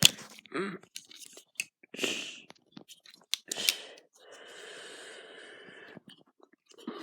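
Leatherman multitool being handled: a sharp click at the start, then scattered small clicks and rustles as it is worked open, with a steady scraping noise lasting about two seconds near the end.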